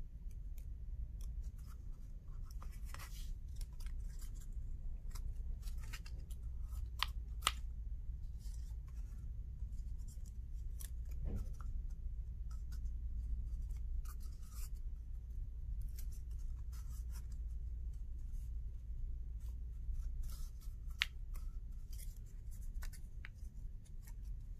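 Star stickers being peeled off their paper backing strip and pressed onto a cardboard paper-towel tube: scattered small paper rustles, crinkles and clicks over a steady low hum.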